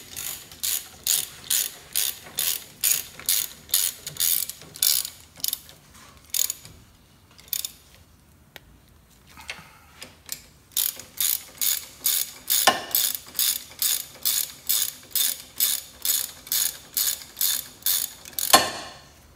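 Hand socket ratchet clicking in quick back-and-forth strokes, about two to three a second, as it tightens a bolt on the front brake assembly. The strokes stop for a few seconds midway, then start again, with a louder knock near the end.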